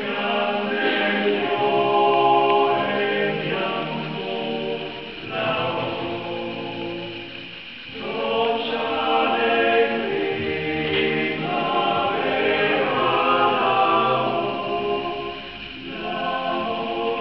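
Small male vocal ensemble singing a cappella in close harmony: held chords in long phrases with brief breaks between them.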